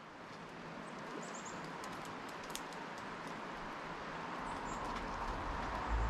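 Steady outdoor rushing noise that slowly grows louder, with a few faint, short, high bird chirps and some light taps.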